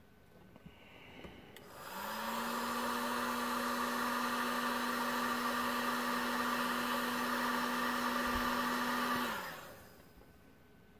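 Black & Decker heat gun switched on about two seconds in: its fan motor spins up to a steady hum with a rush of air, then it is switched off and winds down near the end. It is shrinking heat-shrink tubing over wires.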